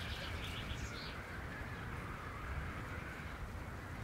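Outdoor ambience: a steady rushing noise with a bird calling in a quick run of short, high notes in the first second.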